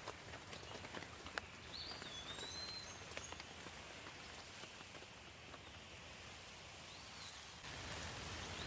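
Steady light rain with scattered individual drops ticking, growing louder near the end. A bird calls a few times with short whistled notes over it.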